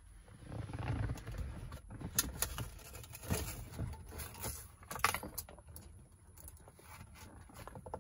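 A run of light clicks and rustles as a hand hangs a cardboard tree-shaped air freshener on a car's rear-view mirror, over low rumbling handling noise. The clicks come thickest in the middle and thin out toward the end.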